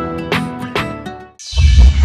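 Background music with plucked notes repeating a few times a second, which cuts off about a second and a half in. A strong low rumble with outdoor ambient noise follows right after.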